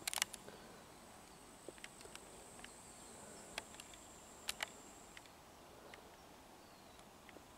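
Faint, steady, high-pitched insect buzz that cuts off about five seconds in. Scattered sharp clicks and ticks sound over it, with a quick cluster of them at the very start.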